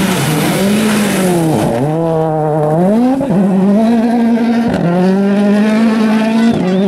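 Rally car engine driven hard, its pitch held high with sharp, brief drops about four times as the driver lifts or shifts. A hiss of tyre noise is strong near the start and fades.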